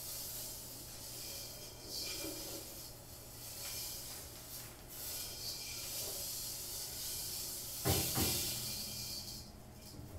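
A hand sweeping dried seeds across a metal cymbal: a swelling and fading hiss of seeds rattling and scraping on the metal, with a sharp knock about eight seconds in.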